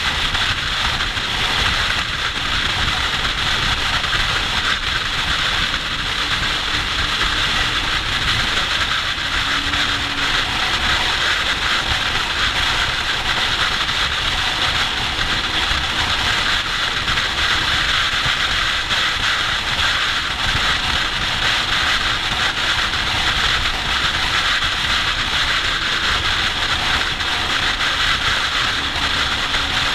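Steady rush of wind buffeting the microphone on a motorcycle at motorway speed, with the bike's engine droning faintly and evenly underneath.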